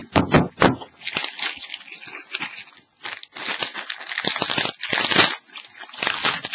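Plastic wrapping on a sealed box of trading cards crinkling and tearing as it is opened, in irregular rustling bursts with a brief pause about three seconds in.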